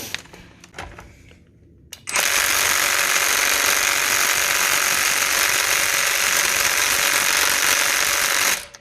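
A few light knocks, then about two seconds in a 20V Kimo cordless impact driver starts hammering steadily on a car wheel bolt. It runs for about six seconds and stops suddenly near the end without loosening the bolt: the driver lacks the torque to break a lug bolt free.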